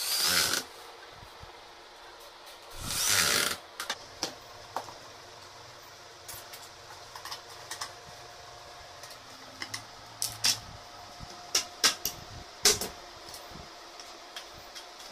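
Corded electric drill driving screws into particleboard furniture panels in two short runs, at the start and about three seconds in. Scattered clicks and knocks follow as the panels are handled and screws are worked by hand.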